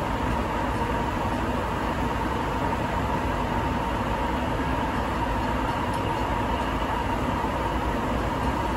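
Sapporo Subway Tozai Line rubber-tyred train running between stations, heard from inside the car: a steady rumble of running noise with a steady high hum over it.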